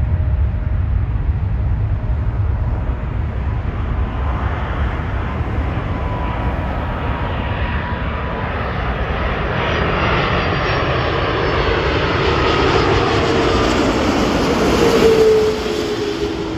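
Jet airliner's engines on landing approach: the engine noise and whine grow louder as it nears, and the tones slide down in pitch as it passes. The sound drops off sharply about fifteen seconds in.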